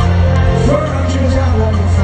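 A live rock band playing loudly with a strong, steady bass, heard from among the stadium audience.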